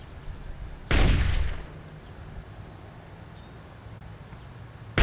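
Two rifle shots from a bolt-action rifle, one about a second in and one right at the end, each a sharp crack with a short fading tail.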